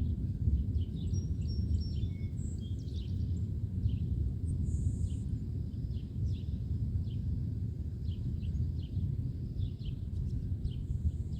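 Wind buffeting the microphone as a steady low rumble, with birds chirping over it in many short, high calls.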